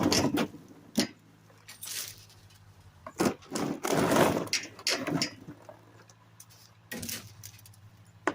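Ears of field corn clattering and thudding in irregular bunches as they are tossed into a corn crib, the busiest stretch about halfway through, over a low steady hum.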